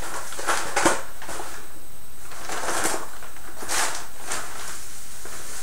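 A large brown paper flour sack with a plastic liner being grabbed and lifted, paper and plastic crinkling in several irregular rustles.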